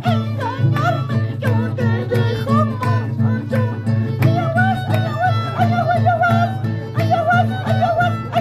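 Live Andean Santiago music: a wavering violin melody over Andean harp and a steady drum beat.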